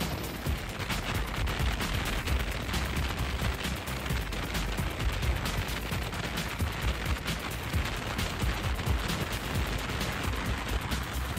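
Wind buffeting the microphone on the open-air deck of a 9640-series diesel railcar running at speed: a dense crackle of wind hits over the low rumble of the train.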